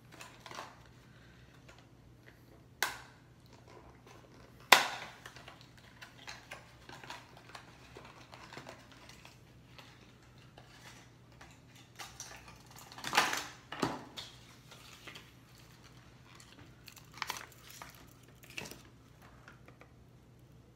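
A plastic blister pack being pried open and handled: scattered sharp plastic clicks and crinkles, with a loud snap about five seconds in and another burst of snaps about two-thirds of the way through.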